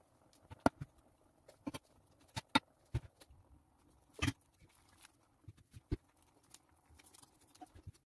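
A cooking spoon knocking and clacking against a pot while rice is spread and layered in it: irregular sharp knocks with a few louder clacks, the loudest about a second in and again around two and a half and four seconds.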